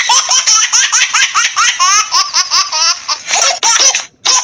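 Funny laughter sound effect played from a sound-effects app: a very high-pitched, rapid string of giggling "ha" syllables, breaking into a few short separate bursts near the end.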